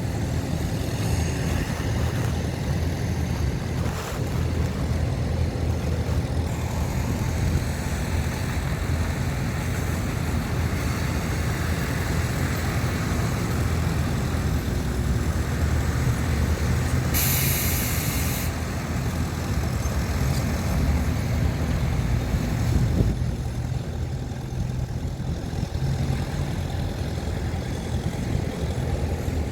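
Heavy diesel engines of earthmoving machinery running steadily, a bulldozer and dump trucks at work. About two-thirds of the way through, a loud hiss of released air lasts about a second, typical of a dump truck's air brakes.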